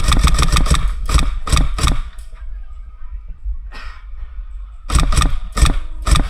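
Airsoft gun firing a rapid full-auto burst of about ten shots a second that stops about a second in, followed by a few separate sharp shots or cracks, with a low rumble of wind and handling underneath.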